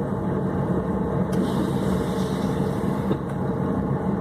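Car engine running steadily, heard from inside the cabin as a low, even hum.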